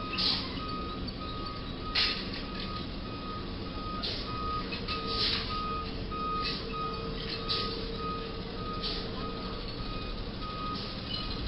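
Box truck's reversing alarm beeping at a steady pace, about two beeps a second, over continuous street traffic noise.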